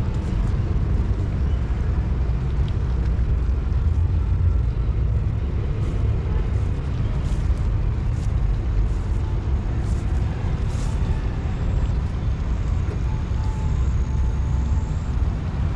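Steady low outdoor rumble with no clear events, the kind made by wind buffeting the microphone or by distant city traffic.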